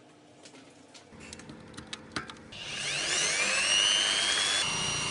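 A few light clicks, then a small electric motor starts about halfway through, its whine rising in pitch as it spins up and then running steadily.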